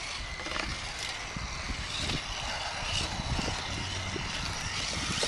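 Venom Creeper RC rock crawler's electric motor and gears whining steadily as it crawls over pipe obstacles, over a low uneven rumble.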